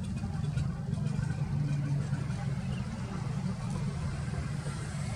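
A large engine running steadily, heard as a low, even rumble.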